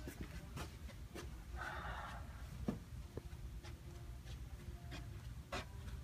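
Faint footsteps on a carpeted hallway floor, soft scattered taps over a low steady hum, with a brief rustle about a second and a half in.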